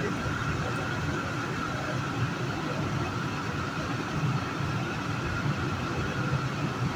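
Metro-North commuter train running at speed, heard from inside the car: a steady rumble of wheels on rail with a constant high hum over it.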